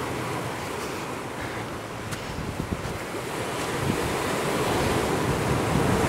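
Surf washing over a rocky shore, mixed with wind buffeting the microphone; the rush builds gradually over the second half.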